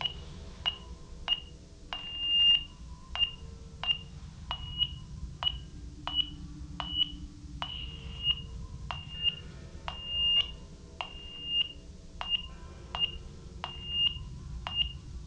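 Baby monitor beeping: a long run of short high beeps, roughly one and a half a second, each starting with a sharp click, a few drawn out longer.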